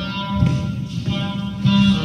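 Instrumental music led by held, ringing guitar notes over a sustained low note, the notes changing about every half second.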